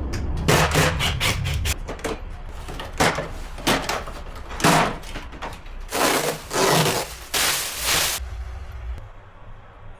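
Irregular knocks, rubbing and rustling from hands-on work on an air conditioner, a run of short sharp strokes with longer swishing noises between about six and eight seconds in.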